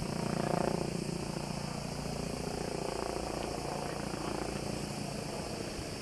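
Steady low drone of a firefighting helicopter's engine and rotor.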